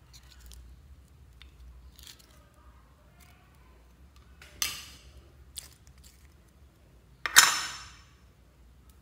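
Thick orange slime poured from a small plastic cup onto clear slime in a glass bowl: quiet sticky squishing, with a sharp wet crackle about four and a half seconds in and a louder, longer one about seven seconds in.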